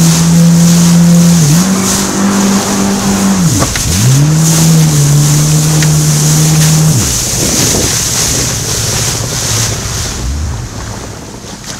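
Jet ski engine running at speed, its pitch dipping briefly twice as the throttle is eased and opened again, then falling away about seven seconds in. Loud wind and rushing water hiss throughout.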